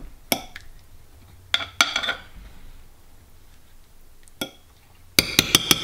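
Metal spoon scraping and clinking against a ceramic casserole dish while spreading a thick sauce, with a few scattered clinks and a quick run of about ten taps near the end.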